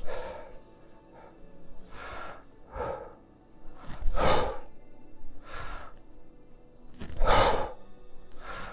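A man breathing hard and forcefully through a set of kettlebell push presses, with a loud, noisy breath about every one and a half seconds. Faint background music plays underneath.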